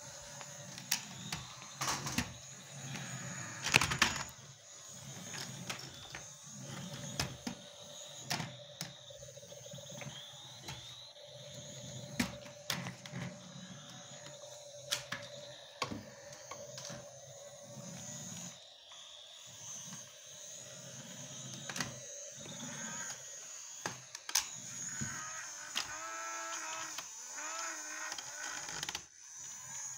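Small electric motor of a battery-powered toy police helicopter whirring steadily as the toy rolls across a wooden tabletop, with frequent clicks and knocks. A wavering pitched tone comes in near the end.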